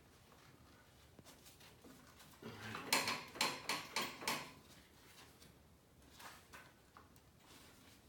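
Metal clinking and rattling from a mower's belt-tensioner pulley and brackets being worked loose by hand: a quick run of five or six sharp knocks in the middle, with faint handling noises around them.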